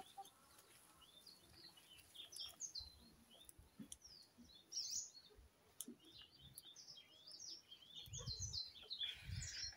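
Faint chirping of small birds, many short calls scattered throughout, with a few soft low thuds near the end.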